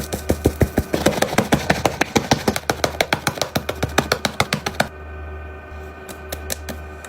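Background music with a fast, even percussive beat over steady held tones and a low drone; the beat thins out about five seconds in.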